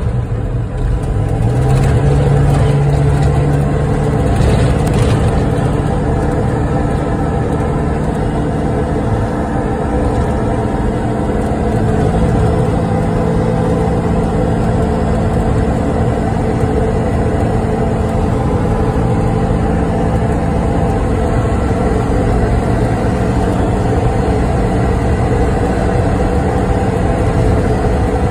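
Road vehicle driving, heard from inside: steady engine hum with tyre and road noise. The engine note rises about a second in and changes pitch a few more times as the vehicle drives on.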